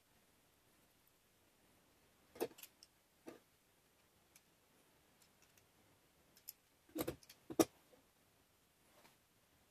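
Hand tools and metal parts handled on a plywood workbench: a few scattered clicks and knocks, a small cluster about two and a half seconds in and the loudest pair about seven seconds in.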